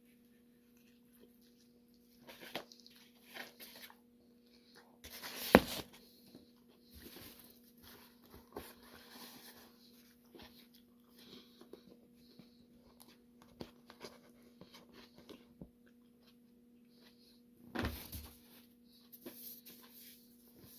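Close-up chewing and mouth noises of a man eating a slice of buffalo chicken pizza, with scattered small clicks and a sharp loud thump about five and a half seconds in. A faint steady hum runs underneath.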